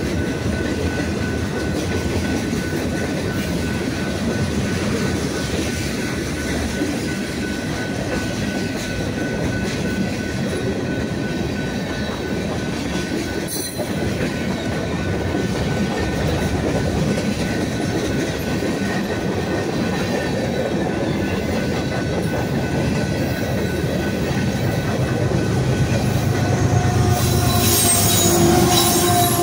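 Freight cars rolling past on steel rails: a steady noise of wheels on track with a faint, steady high-pitched squeal. Near the end, the mid-train distributed-power locomotive, a GE ES44C4 diesel, comes alongside and adds a louder engine hum.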